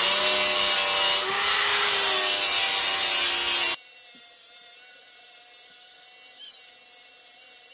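Powered finger file (narrow belt sander) grinding down a weld on car body steel, loud and rough for about four seconds. It cuts off suddenly to a quieter steady hum.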